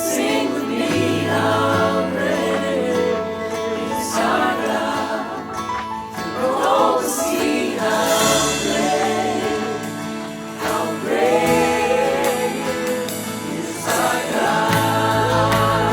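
Worship song sung by several voices together over instrumental accompaniment.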